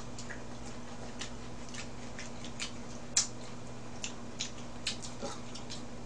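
Eating sounds of a person chewing raw mullet sashimi and picking it up with chopsticks: irregular short wet clicks, the sharpest about three seconds in, over a steady low hum.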